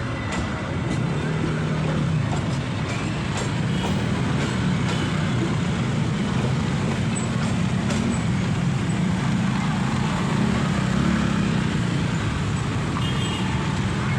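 Road traffic with engines running, including heavier vehicles, making a steady low drone.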